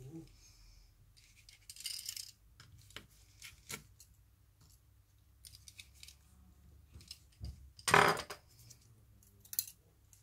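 Tiny iPhone 6 screws and a precision screwdriver clicking and tapping as the screws are set down on a silicone repair mat and the screwdriver works in the phone's frame: scattered light ticks, the loudest about eight seconds in.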